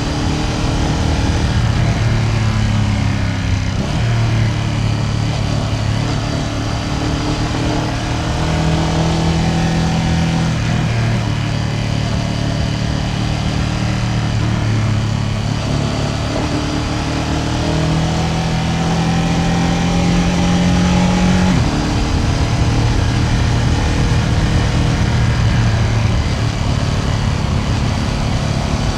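Ducati Panigale V2S V-twin engine running on the move, its pitch climbing steadily through long accelerations in gear and dropping suddenly about three-quarters of the way through, then pulling again.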